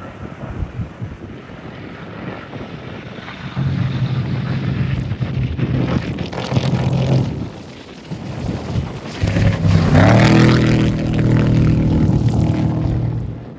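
Off-road race vehicle engines running hard at high revs: one from about three and a half seconds in, then a louder one from about nine seconds in whose pitch rises and then holds. Wind buffets the microphone at the start, and the sound cuts off suddenly at the end.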